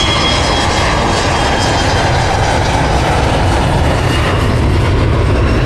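Airplane engine noise: a loud, steady jet rush that cuts in and out abruptly.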